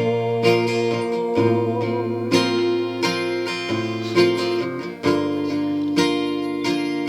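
Instrumental passage of a worship song: acoustic guitar strumming held chords, with a fresh strum about every half second, between sung lines.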